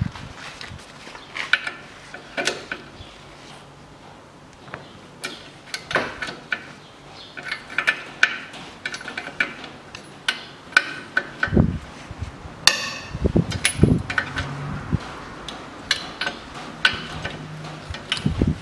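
Hand tools on steel: a long socket wrench with a 19 mm socket clicking and clinking against the nuts of a car's front strut-to-knuckle bolts as they are loosened, with a few duller knocks about two thirds of the way in.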